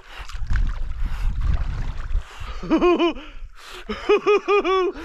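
A swimmer's short, quickly repeated cries from the shock of cold water: a run of three, then a run of about five, each rising and falling in pitch. A low rumble, wind on the microphone, fills the first two seconds.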